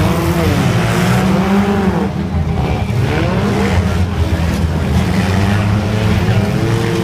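Several demolition derby cars' engines running together, with revs rising and falling every second or two.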